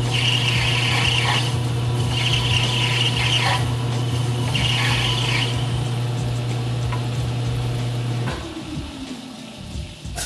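Home-built concrete metal lathe running with a steady hum while an indexable insert takes a facing cut on brass stock; the cut comes in several short high squeals, about one a second and a half. About eight seconds in the motor is switched off and the spindle coasts down with a falling hum.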